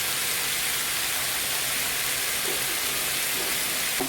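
Brinjal and potato pieces sizzling steadily in hot oil in a pan, with a couple of faint short sounds in the middle.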